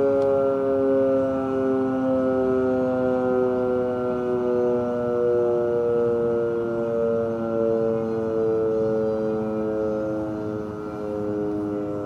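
Outdoor warning siren sounding the nightly curfew signal: one long, sustained tone that slowly falls in pitch and eases a little in loudness near the end.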